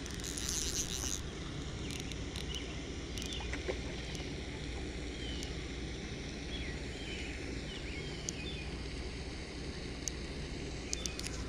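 Outdoor pond-side ambience: a steady low rumble of wind on the microphone, a brief high buzzing in the first second, and faint short chirps through the middle.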